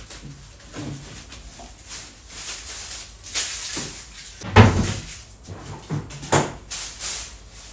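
Handling noises from groceries being moved about and set down: a series of knocks and rustles, loudest about four and a half seconds in and again near six and a half seconds.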